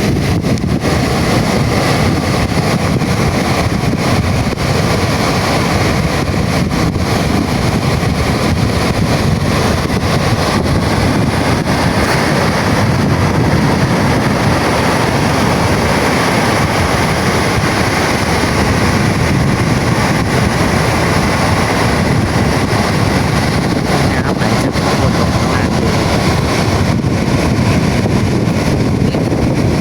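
Strong wind buffeting the microphone over the steady wash of sea waves breaking on the beach.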